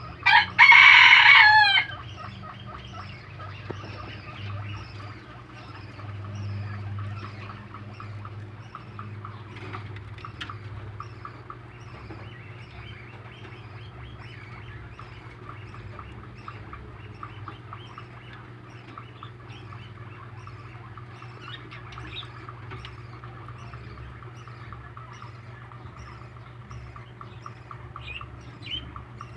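A loud bird call lasting about a second and a half near the start, then rabbits nibbling fresh vegetables, making a soft, rapid crunching.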